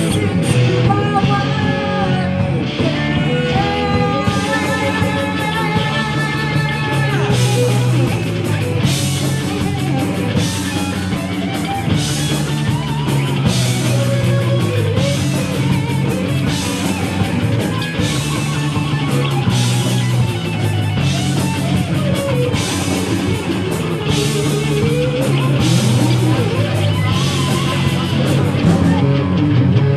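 Live rock band playing electric guitar, bass guitar and drum kit, the guitar amplified through a Marshall amp. Held, bending guitar notes in the first few seconds give way to a driving section with cymbal hits about once a second.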